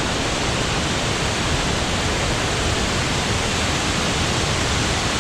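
Fukiware Falls, water pouring over the rock ledge as a steady, even rush of noise with no breaks or changes.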